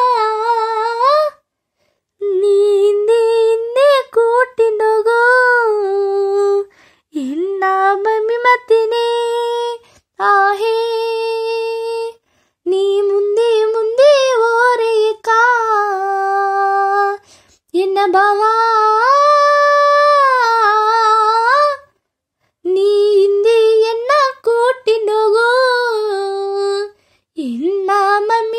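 A girl singing an old Badaga song solo and unaccompanied. She sings in phrases of two to five seconds with brief silent breaks between them, and her held notes waver in pitch.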